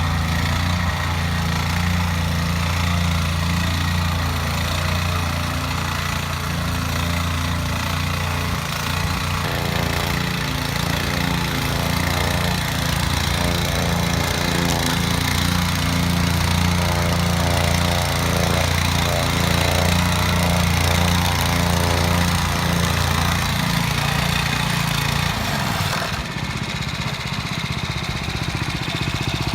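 Meiwa KP30 plate compactor running, its Robin EH09 petrol engine at working speed and the plate vibrating with a steady low hum. About 25 seconds in, the hum stops and the engine note drops.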